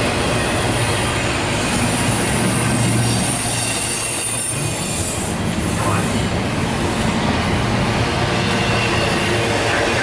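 Double-stack container freight cars rolling past: a steady, loud rumble and clatter of steel wheels on the rails, with a thin high wheel squeal in the first few seconds.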